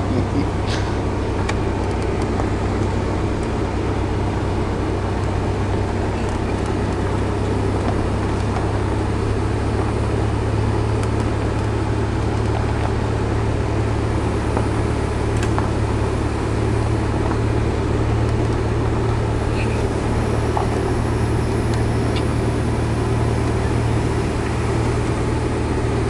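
Steady low rumble of a car's engine and tyres heard from inside the cabin while it drives along.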